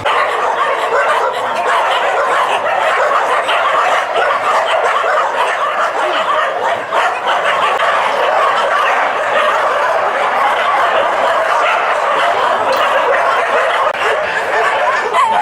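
A group of dogs barking and yipping all at once, a dense din with no break.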